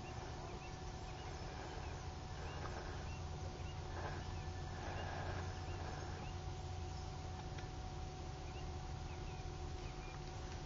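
Outdoor ambience: a steady low rumble and a thin, even hum, with many short, faint chirps scattered throughout.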